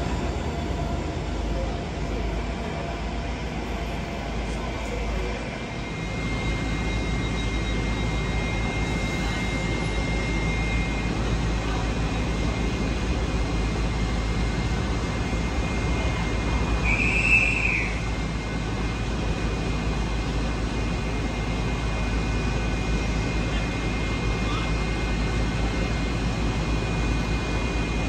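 Great Western Railway Hitachi Intercity Express train standing at the platform with its engines running: a steady low rumble and hum. A brief high squeal comes about two-thirds of the way through.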